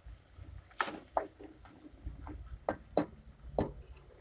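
Wooden spoon knocking and scraping in a pot as fried prawns are lifted out onto a plate: about six sharp taps, one with a short hiss about a second in.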